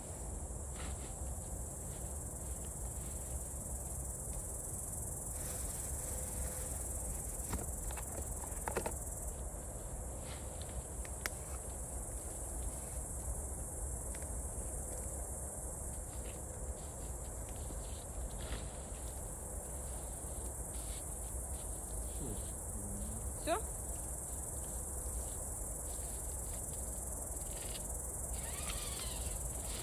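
Steady, high-pitched chorus of crickets in the grass, over a low rumble. A few faint clicks, and one short rising squeak about two-thirds in.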